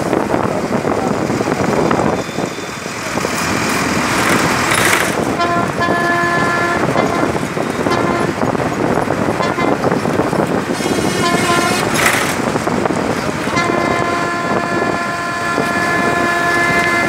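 Steady road and wind noise heard from a moving vehicle, with a vehicle horn honking: short honks about five and eight seconds in, then a long held honk from about thirteen seconds on. Two sudden loud whooshes about five and twelve seconds in.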